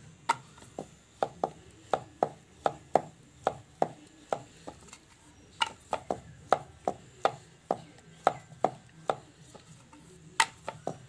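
Wooden rolling pin knocking on a wooden rolling board as dough is rolled out flat, a short sharp clack about twice a second with each back-and-forth stroke, with brief gaps while the dough is turned.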